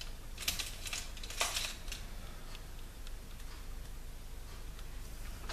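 Make-up kit being handled while a flat brush is picked up: a few short clicks and rustles, the loudest a scratchy rustle about a second and a half in, then a few faint ticks over a low steady hum.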